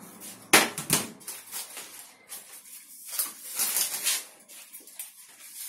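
A metal baking tray knocks down onto a glass-ceramic hob about half a second in, with a smaller knock just after, then baking paper crinkling in short rustles as it is handled on the tray.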